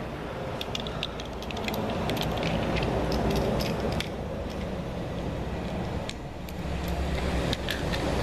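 Light metallic clicks and clinks of cam bearing installer parts being handled and taken apart, over a steady low hum. The clicks come in a quick cluster during the first few seconds and return briefly near the end.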